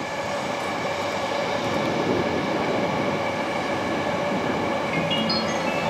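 JR East E231 and E233 series electric commuter trains running toward the camera on curved track: a steady rumble of wheels on rail with several held tones over it. Near the end a short run of high tones steps upward.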